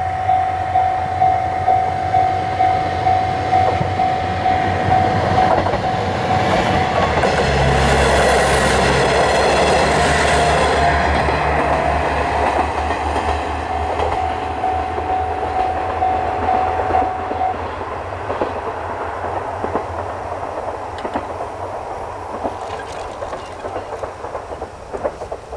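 Japanese level crossing's warning bell ringing its 'kan-kan' about twice a second as a train passes with wheel clatter and rumble, loudest around 8 to 12 seconds in. The bell stops about 17 seconds in, and the train noise fades away.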